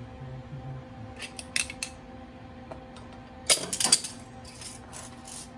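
Welder humming steadily, with a few metal clicks and then a short crackling burst about three and a half seconds in: a tack weld on a steel plate for a lawn tractor's steering arm.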